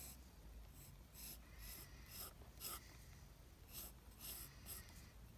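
Faint pencil strokes on paper: about eight short, separate scratches at an uneven pace as lines are sketched.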